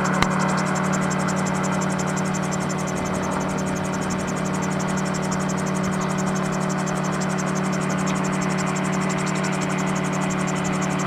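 Autogyro in flight, its engine and propeller running steadily at climb power: a constant drone with a fine rapid buzz over it and wind noise rushing past the open cockpit.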